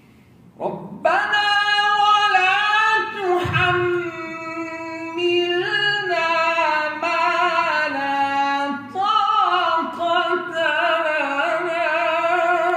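A man's solo Quran recitation (tilawat), chanted melodically in long, ornamented, wavering held notes at a fairly high pitch. It begins just under a second in, with a short pause for breath about three quarters of the way through.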